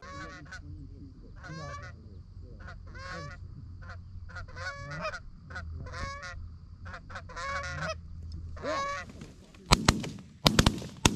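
A run of about a dozen short goose honks over the first nine seconds, then a rapid volley of four or five shotgun blasts near the end.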